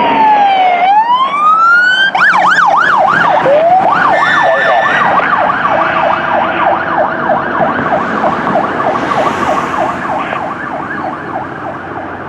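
Siren of a Los Angeles Fire Department battalion chief's pickup (B15) responding with lights on. It starts as a slow wail falling and then rising, switches about two seconds in to a fast yelp, and fades as the truck pulls away.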